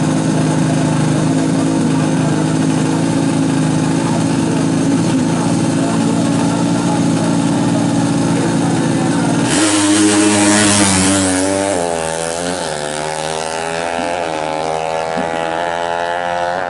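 Single-cylinder four-stroke engine of a fuel-injected 350cc Yamaha MX King drag bike with a DOS exhaust, running at a steady held rev on the start line. About nine and a half seconds in it launches, the engine note climbing and dipping at each upshift and growing quieter as the bike runs away down the strip.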